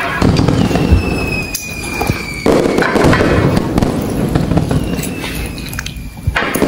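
Fireworks sound effect: three loud bangs with crackling tails, and a falling whistle twice.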